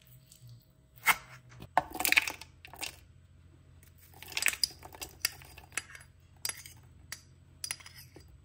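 A spoon scraping and tapping against a plastic food processor bowl and a small cup as avocado pieces and frozen berries drop in. It comes as sharp clicks and short clattering scrapes, loudest about a second and two seconds in, with another burst of clatter about four and a half seconds in.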